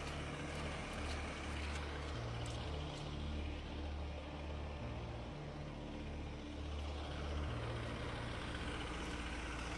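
Heavy diesel log-truck engine labouring under load while it pulls loaded log trailers on a wet dirt road, its low note shifting up and down every second or so.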